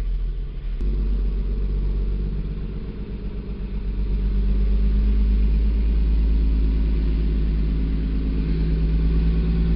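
Vehicle engine running steadily with a deep hum, growing louder about four seconds in.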